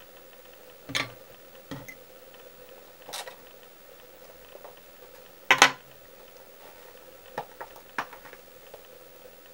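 Light, irregular clicks and taps of small tools and materials being handled at a fly-tying bench, about six in all, the loudest about halfway through. A faint steady hum runs underneath.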